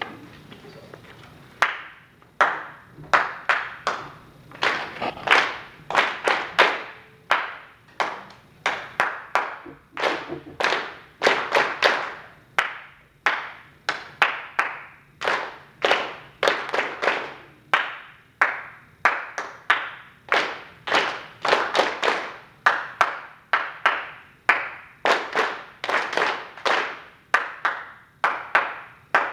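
Hand clapping in short rhythmic patterns, starting about two seconds in: a music teacher claps rhythms and a class of string students claps them back in a rhythm-echo exercise.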